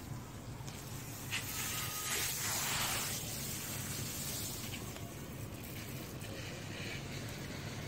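Water spraying from a garden hose's shower nozzle onto grass: a steady hiss, louder for a couple of seconds near the start as the spray sweeps closer.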